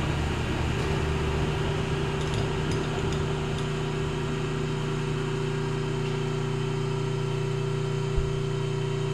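Hardinge HC chucker lathe running steadily, a constant hum with a second, higher tone joining about a second in. A few faint ticks come about two to three seconds in, and a short low thump near the end.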